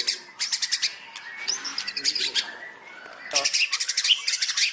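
White-rumped shama singing: bursts of rapid, sharp chattering notes in imitation of fighting tree sparrows, its 'gereja tarung' fill, with a short whistled phrase in the middle and a long chattering run near the end.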